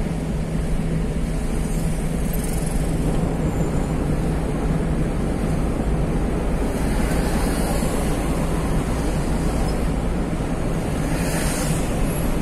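A moving car's road noise heard from inside the cabin: a steady rush of tyre and wind noise over a low, even engine hum, with a brief rise in hiss near the end.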